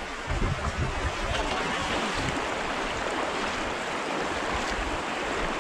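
Shallow river current rushing steadily over stones.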